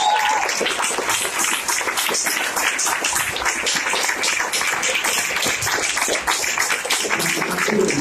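Audience applauding the dancers' bow: dense hand clapping, with a short cheer right at the start. Music starts up near the end.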